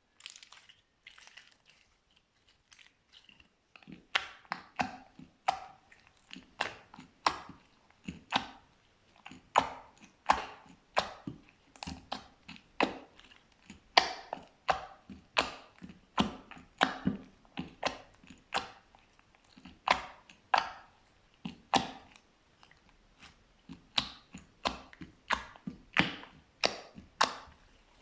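Slime being pressed and squished by hand, giving sharp sticky pops and clicks about one to two a second, starting about four seconds in after a few faint crackles.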